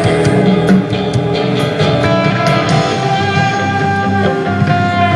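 Live rock band playing an instrumental break with no singing: sustained guitar notes over a steady drum beat.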